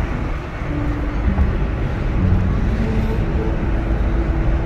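Steady engine and road noise heard inside the cabin of a car driving along a highway.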